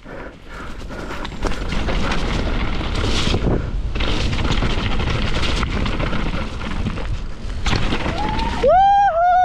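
Mountain bike rolling fast down a dirt forest trail: steady tyre and wind rumble on the camera with small rattles and clicks from the bike. Near the end a loud, high squeal rises and falls in arcs for about a second as the disc brakes bring the bike to a stop.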